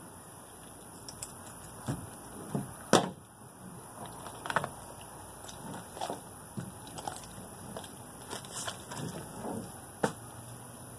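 Irregular wet slaps and knocks of a rabbit carcass being handled on a plastic pickup bedliner as its innards are pulled out. The loudest knock is about three seconds in, with a sharp one near the end.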